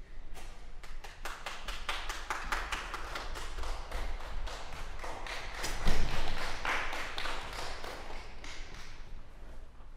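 Audience applauding, a dense patter of claps that thins out near the end, with one louder thump about six seconds in.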